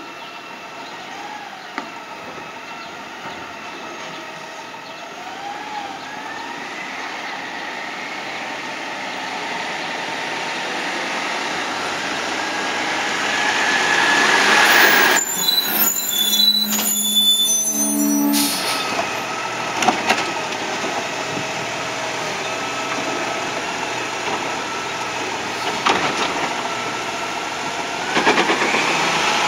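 2021 Peterbilt 520 garbage truck with a New Way Sidewinder side-loader body approaching and growing louder, then stopping with a loud hiss of its air brakes that lasts about three seconds midway. Its engine then runs steadily, with a few sharp clicks and a rising whine near the end.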